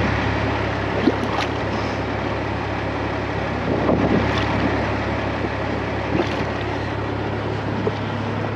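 A truck engine idling steadily, with wind noise on the microphone and a brief click about a second in.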